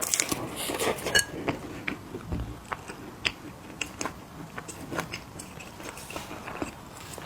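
A person biting and chewing crunchy mini cookies: a dense run of crunches in the first second or so, then scattered crisp crunches.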